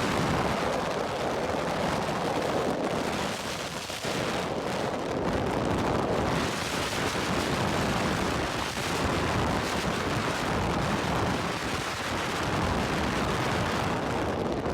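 Waterfall's rushing water: a loud, steady rush of white noise.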